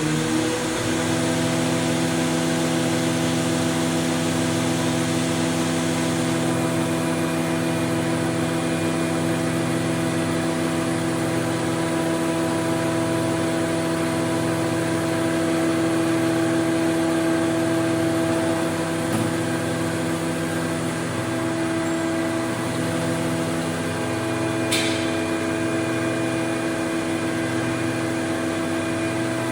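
Martin T 54 surface planer, its four-knife Tersa cutterblock driven by a 5.5 kW motor, running free with a steady hum and whine. It finishes coming up to speed right at the start and then holds a constant pitch, with one short click about 25 seconds in.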